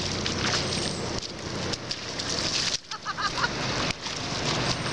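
Children's bare feet splashing and slapping in shallow rain puddles on asphalt over a steady rushing noise, with a few short squeaky cries about three seconds in.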